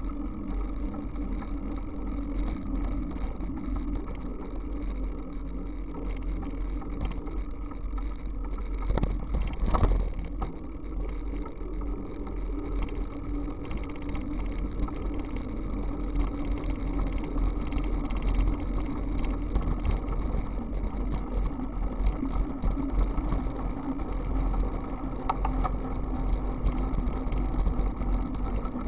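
Steady wind rumble on a bicycle-mounted camera's microphone, mixed with the hiss and hum of bicycle tyres rolling on asphalt. A brief knock, like the bike jolting over a bump, comes about nine to ten seconds in.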